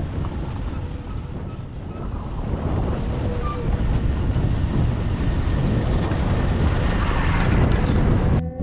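Vehicle noise on the road: a steady low rumble with wind buffeting the microphone, growing louder towards the end and cutting off suddenly.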